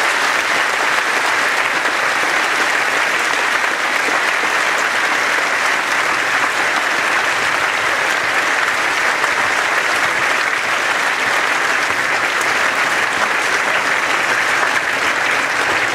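Large audience applauding steadily and loudly.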